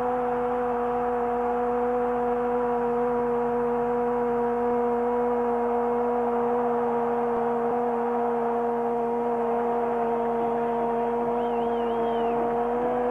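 Football commentator's long drawn-out 'goool' cry, held on one steady note for the whole stretch and sagging slightly in pitch near the end, over a stadium crowd's steady noise.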